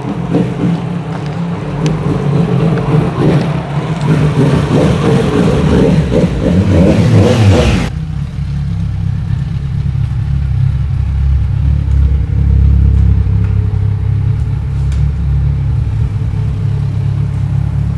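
Kawasaki Z1000 inline-four motorcycle with a Vance & Hines slip-on exhaust, running and revving loud for about eight seconds, then a sudden change to a steady low engine drone.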